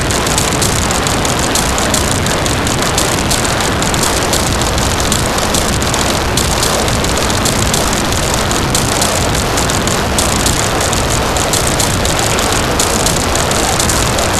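Harsh noise music: a loud, unbroken wall of distorted static, dense from deep rumble up to a fizzing, crackling treble, with no beat, melody or voice.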